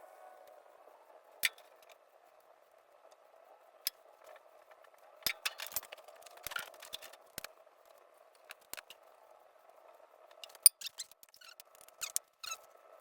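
Scattered sharp clicks and taps of hand tools and metal parts being handled while a starter is fitted to a lawnmower engine, at irregular intervals, thicker in the second half, over a faint steady hum.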